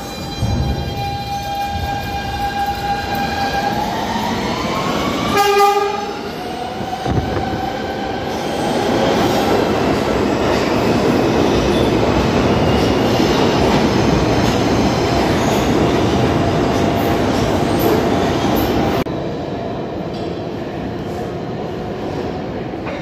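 New York City subway train: a steady pitched whine that rises in pitch, then a short horn blast about five seconds in, followed by the loud rush and wheel noise of the train running past the platform. Near the end the noise drops suddenly to a quieter station hum.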